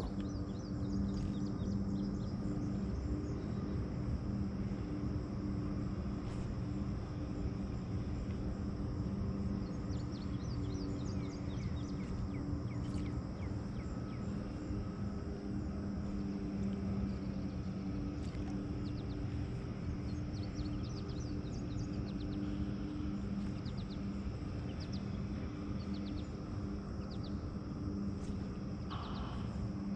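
Abu Garcia Black Max baitcasting reel being cranked steadily, its gears giving a continuous low whir as a topwater lure is retrieved. Insects drone steadily in the background, with a few short bird chirps.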